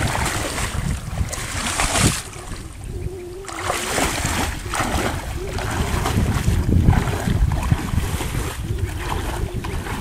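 Wind buffeting the microphone in uneven gusts, with a quieter lull about two seconds in, over the wash of pond water around a man wading.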